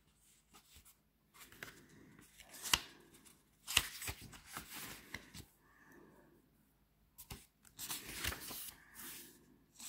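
Pages of a small tarot guidebook being leafed through: soft paper rustles with a few sharp taps.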